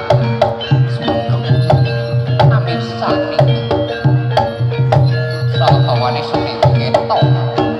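Live Javanese gamelan music accompanying a kuda kepang horse dance: drums and struck, ringing tuned metal percussion keep a quick, steady rhythm over one steady held tone.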